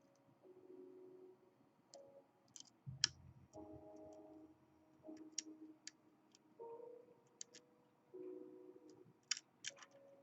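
Faint metallic clicks and short scraping sounds of a flag dimple pick working the pins of an Avocet ABS pin-in-pin dimple lock.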